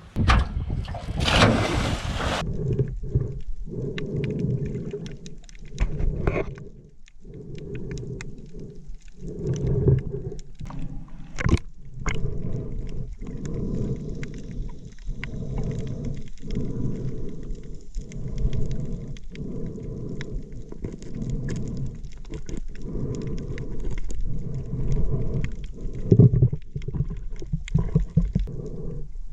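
A splash of a person going into the sea, then muffled underwater sound of water moving in uneven surges.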